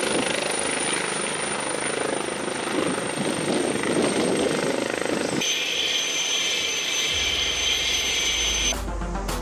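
AgustaWestland AW119 Koala single-turboshaft helicopter running on the ground, with rotor noise under a high turbine whine. About halfway through, the sound changes abruptly to a steadier, higher turbine whine, joined by a low rumble. Music comes in near the end.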